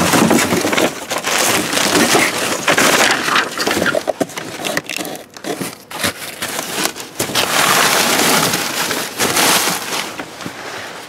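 Cardboard boxes and paper packaging in a dumpster being shoved aside and crushed by hand: a dense, loud run of crunching, scraping and crackling, easing off for a moment in the middle.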